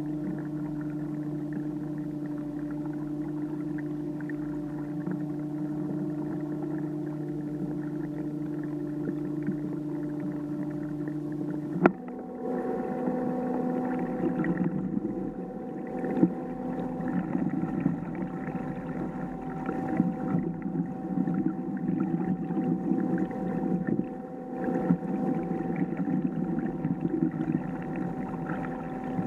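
Kayak's electric trolling motor running with a steady hum. About halfway through it clicks and the hum jumps to a higher pitch, as when the motor is switched to a faster speed, and a rougher rushing noise joins it.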